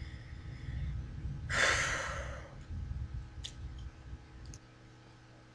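A person's long breathy sigh, about a second and a half in, over a low rumble that stops near the end.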